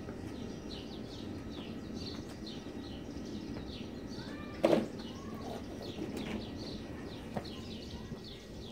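Steady low roar of a forced-air metal-melting furnace burner, with small birds chirping repeatedly over it. A single sharp knock sounds about four and a half seconds in.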